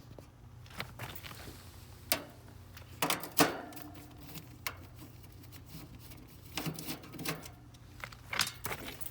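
Sharp metallic clicks and clatters of screws and sheet metal as the access panel of a condensing unit is unscrewed, loudest about three and a half seconds in. Under them runs a steady low hum from the unit, whose fan runs while its compressor does not start.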